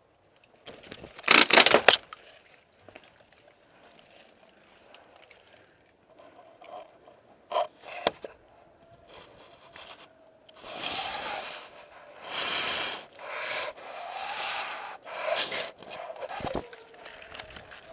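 Camera and microphone scraping and rubbing against a painted wooden wall and cloth. There is a loud scrape about a second in, then a run of rubbing scrapes, each about a second long, in the second half.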